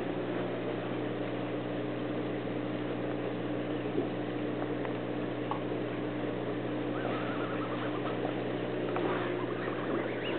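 Aquarium air pump humming steadily, with air bubbling up through the tank water.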